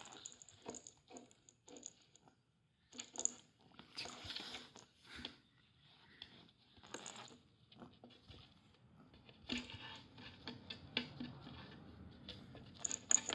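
Kitten scrabbling inside a homemade wooden box tunnel, its paws and claws tapping and scuffing on the wood as it bats at a feather toy. The sound is faint and comes in irregular bursts of light taps, growing into denser scratchy scrabbling near the end.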